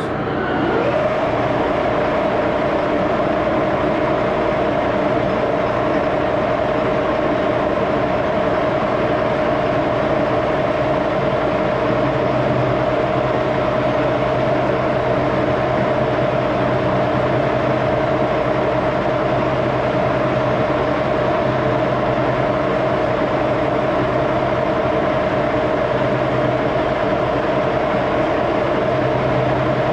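Axelson gear-head engine lathe starting up about a second in, then running steadily, with a constant gear whine from the headstock.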